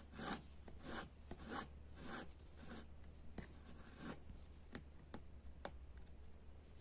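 Needle and cotton thread being drawn through fabric stretched tight in an embroidery hoop, working a petatillo weave stitch: a series of short, faint rasps, about two a second at first and then more spaced out.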